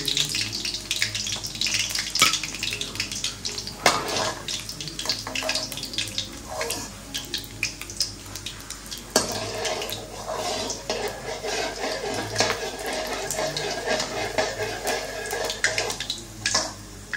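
Hot oil sizzling in a steel wok as food deep-fries. A steel ladle clinks and scrapes against the pan as oil is spooned over the pieces and they are lifted out, with a few sharp metal knocks.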